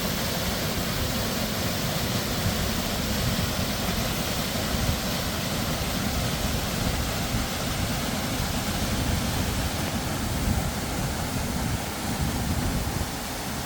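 A waterfall's rushing water: a steady, even noise.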